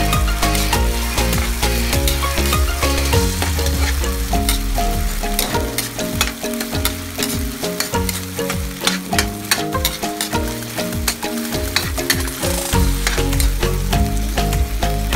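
Chopped aromatics and sauce sizzling in a hot steel wok while a metal ladle stirs and scrapes them, with many sharp clicks of ladle on wok. Background music plays underneath.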